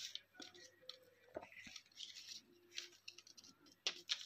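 Faint scattered clicks and short rustles of insulated electrical wire and a small screwdriver being handled, with a few sharper clicks about a second and a half in and near the end.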